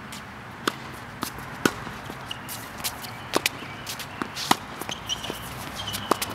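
Doubles tennis rally on an outdoor hard court: rackets striking tennis balls and balls bouncing off the court, a string of sharp pops often less than a second apart, with players' footsteps between them.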